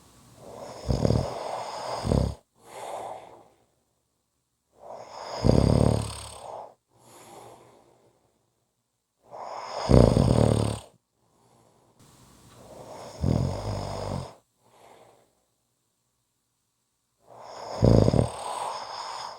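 A person snoring: five loud, rasping snores about four seconds apart, each followed by a shorter, softer breath.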